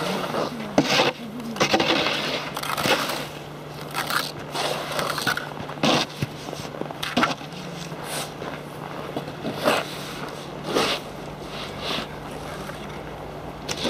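A pointed metal scribe scraping a line into the ice along a spirit level, in irregular short scratches and crunches. A low steady hum runs underneath.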